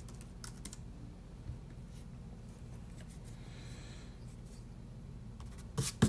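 Pencil and hands on drawing paper: scattered light taps and clicks, with a faint scratching stroke of pencil on paper about halfway, over a low steady hum.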